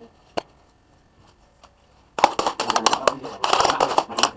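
Close handling noise: a single click, then about two seconds of rapid clicking and scraping near the end, from hands working at the ceiling while fitting a small plastic security camera.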